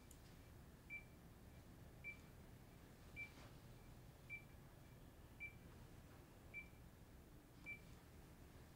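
Bedside patient monitor giving its steady pulse beep: one short, high beep about every second, the regular tone of a monitored heartbeat.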